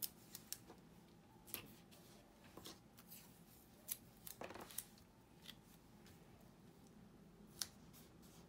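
Washi tape being pulled off, torn and pressed down to tape clear vinyl sheeting to a cutting mat: quiet, scattered sharp clicks and short rustles, with one longer rustle about four and a half seconds in.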